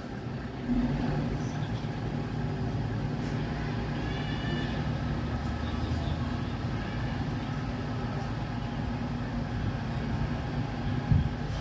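MAN TGS 26.320 garbage truck's six-cylinder diesel engine running; about a second in it revs up and then holds a steady, higher note. A single knock sounds near the end.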